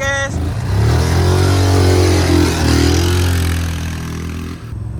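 ATV engine revving and held at high revs for about three and a half seconds, its pitch wavering slightly, then dropping off sharply near the end.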